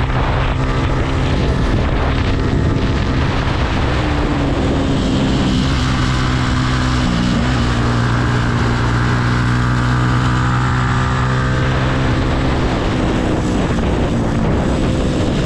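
Yamaha R15's single-cylinder engine pulling hard uphill, heard close from on the bike. Its note rises and falls as the throttle is worked through the bends.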